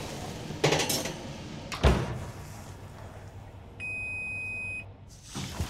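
Two clunks in the first two seconds, the second the louder, then a single electronic beep about a second long from the oven's digital timer as it is set to 30 minutes.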